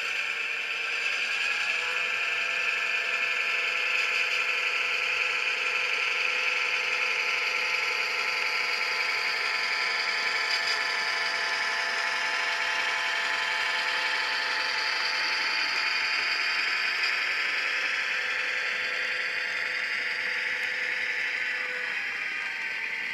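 Sound-decoder diesel engine sound from an HO-scale model locomotive's speaker, with the load-sensing decoder shaping the engine sound to the weight of the train it is pulling. It runs steadily as a hum with a hiss over it, with a slight shift in pitch near the end.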